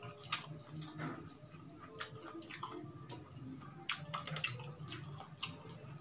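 A man chewing a mouthful of food close to the microphone: wet smacking mouth sounds with many small, irregular clicks.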